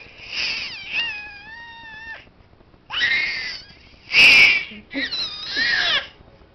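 Infant squealing and shrieking in about five high-pitched calls, one held on a steady pitch for about a second, the loudest about four seconds in.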